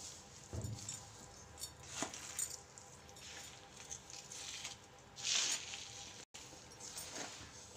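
A spoon stirring and scraping a crumbly mix of flour, ghee and powdered sugar in a bowl: faint, irregular gritty swishes, with a louder scrape about five seconds in.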